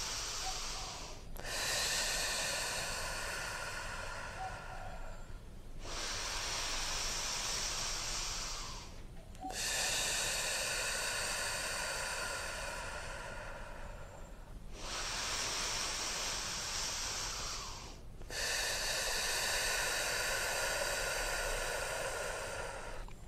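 A woman breathing slowly and deeply: long, airy inhales and exhales of about four to five seconds each, separated by brief pauses, about three full breaths. This is paced belly-and-chest breathing, five seconds in and five seconds out.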